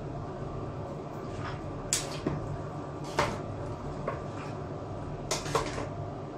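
Metal kitchen tongs clicking and clanking against a cooking pot while tossing vegetables and noodles, a few sharp irregular knocks from about two seconds in, over a steady low hum.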